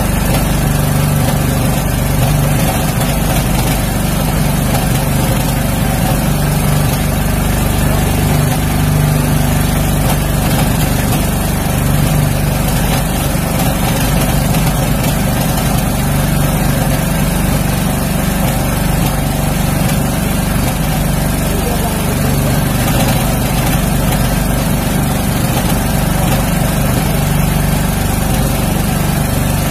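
Small engine aboard an outrigger fishing boat running steadily, a loud unchanging drone.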